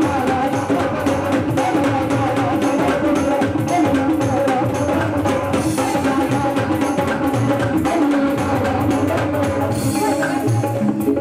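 Loud music with a fast, steady percussion beat over sustained instrument tones.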